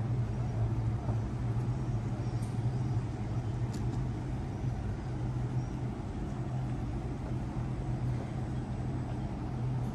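Steady low hum of running engine machinery, even in pitch throughout, with no change in speed.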